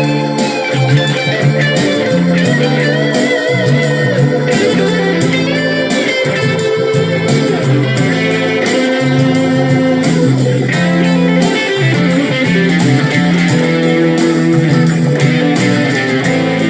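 Electric guitar playing a melodic line with bent, wavering notes over a bass line, in a blues-rock style.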